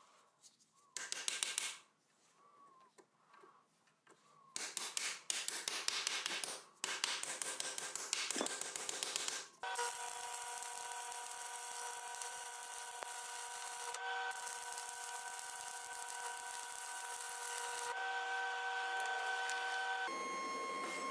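Electric arc welding on a steel canister: three crackling bursts of a few seconds each as beads are laid, then from about ten seconds in a steady hiss with a constant whine.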